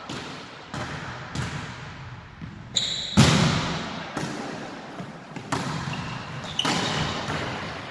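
Volleyball being hit and striking the floor: several sharp thumps that echo, the loudest about three seconds in, with a brief high squeak just before it.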